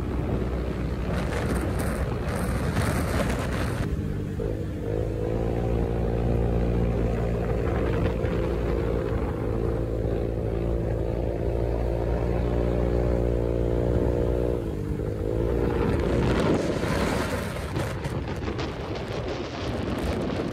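Honda PCX 150 scooter's single-cylinder engine running at steady revs while riding, mixed with wind rushing over the microphone. The engine note rises about four seconds in, holds steady, then drops away about fifteen seconds in, leaving mostly wind noise.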